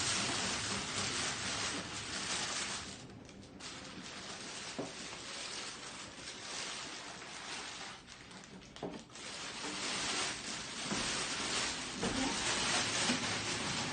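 Packaging rustling and crinkling as it is handled and pulled off a newly unboxed kitchen appliance, with a few light knocks.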